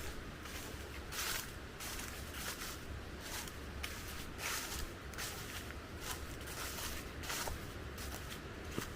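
A hiker's footsteps on a trail, an even walking pace of a little more than one step a second.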